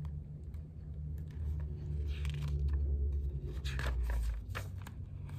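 Pages of a picture book being flipped, several quick papery rustles over a low rumble of the book being handled.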